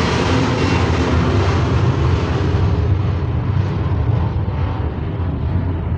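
Loud, steady low rumble with a hiss on top; the hiss fades away over the last few seconds while the rumble carries on.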